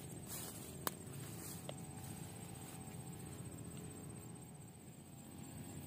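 Faint, steady low background noise, with one sharp click a little under a second in and a softer click about a second later.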